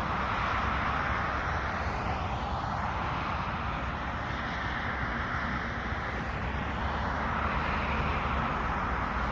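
Gas chainsaw running at a steady speed, its engine holding one even drone throughout.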